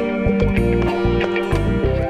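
Background music: held chords over a bass and drum beat.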